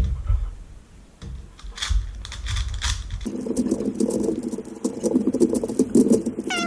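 Plastic layers of a Rubik's Professor 5x5 cube being turned rapidly, a dense run of clicks and clattering. The texture changes abruptly about three seconds in.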